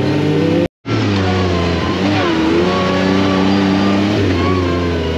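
Off-road buggy engine running under changing throttle, its pitch rising and falling as it speeds up and eases off. The sound cuts out briefly just under a second in.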